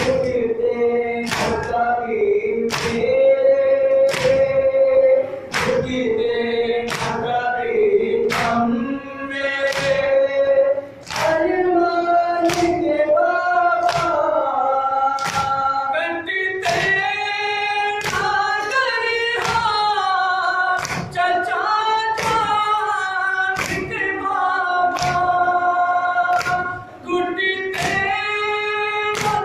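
Men's voices chanting a Shia nauha (Muharram lament), sung together as a group. Through it run evenly spaced sharp slaps of hands beating on chests (matam), about three every two seconds, keeping time with the chant.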